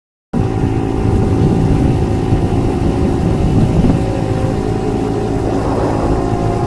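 A 50cc pocket bike's small single-cylinder engine running steadily.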